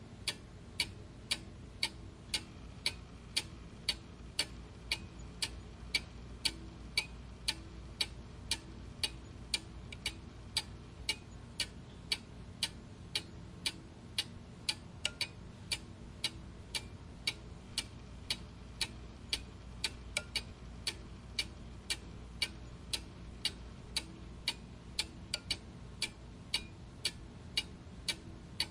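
Clock ticking steadily, an even tick-tock of about two sharp ticks a second.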